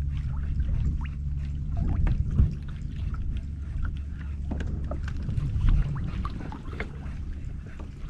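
Bixpy electric jet motor running steadily with a low hum as the kayak moves, with water splashing and gurgling against the hull.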